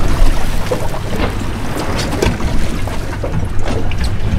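Wind on the microphone and water moving around a fishing boat at sea, over a steady low hum, with a few short knocks.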